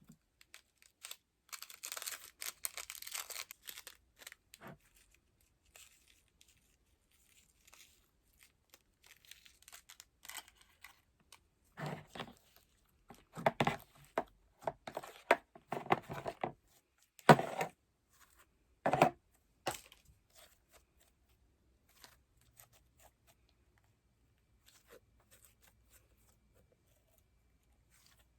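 Slime being handled and pulled apart: a crinkly, tearing sound at first, then a run of louder sticky squelches and pops about halfway through, with quiet pauses between them.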